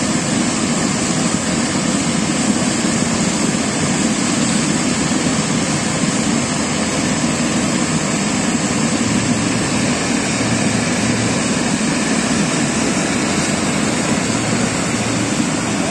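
Steady, loud rushing noise of a hot-spring geyser venting steam and boiling water, mixed with a fast-flowing river over rocks.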